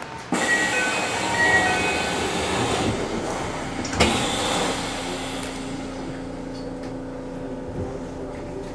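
Electric commuter train's passenger doors closing at a station stop: a sudden rush of hiss with a few short beeping tones, then a sharp thud about four seconds in as they shut. A steady low hum follows.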